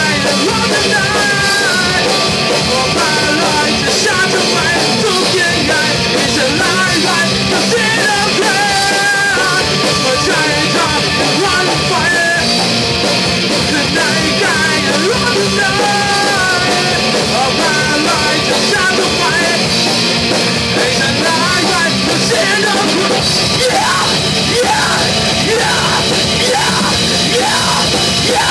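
A rock band playing live: electric guitar and drum kit with a man singing into a microphone, loud and continuous.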